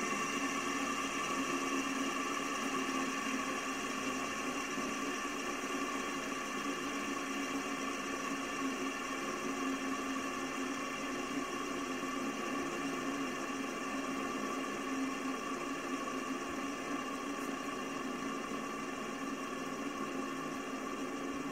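Electroplated metal tri-bar fidget spinner spinning flat on a surface, its bearing giving a steady whirring hum with a few fixed tones.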